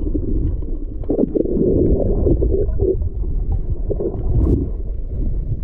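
Underwater sound picked up by a submerged camera: a steady, low, muffled rush of moving water with bursts of bubbling and gurgling, and one sharp tick about four and a half seconds in.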